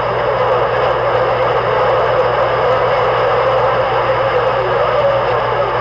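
Vehicle engine running steadily with a low hum under an even hiss.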